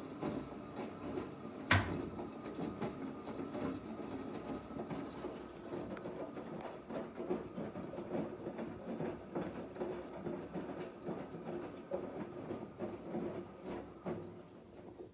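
Electrolux W575H washer-extractor running a 98 °C wash: the drum turns the load with an uneven rumble and clatter, under a thin, steady high whine. A single sharp click comes about two seconds in, and the noise drops away suddenly at the end.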